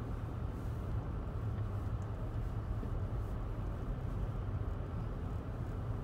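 Car driving on a snow-covered road, heard from inside the cabin: a steady low rumble of engine and tyre noise.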